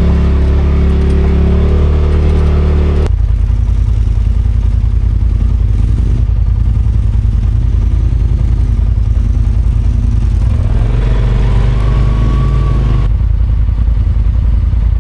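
Off-road side-by-side engine running loud while under way, with low pulsing exhaust. The engine sound changes abruptly about three seconds in and again near the end.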